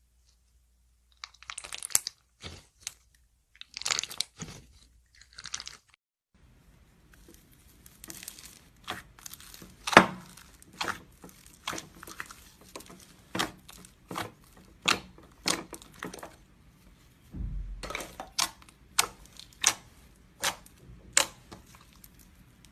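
Slime worked by hand, making crunchy crackling and popping sounds. It starts with a few longer crackly bursts, then goes on as a string of sharp pops about once a second.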